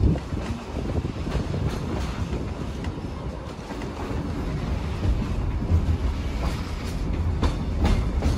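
Kuranda Scenic Railway train running along the track: a steady low rumble with scattered sharp clicks of the wheels over the rails, several near the end.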